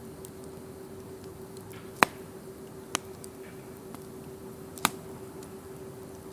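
Wood campfire crackling, with a few sharp pops: the loudest about two seconds in, others near three and five seconds, and faint ticks between them. A steady low hum runs underneath.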